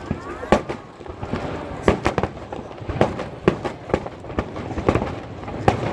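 Aerial fireworks shells bursting in quick, irregular succession, about ten sharp bangs over a continuous rumble and crackle.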